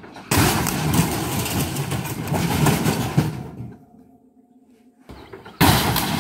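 A refrigerator dropping onto a particle-board air hockey table: a loud crash and clatter of smashing plastic and board about a third of a second in, dying away after about three seconds. Another loud crash comes near the end.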